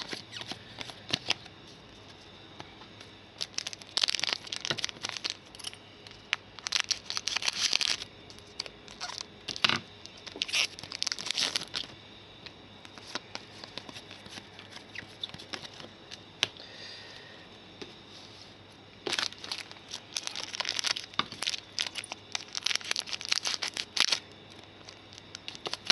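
Foil wrappers of Donruss Soccer 2015 trading-card packs being torn open and crinkled by hand, in repeated bursts with a quieter stretch in the middle.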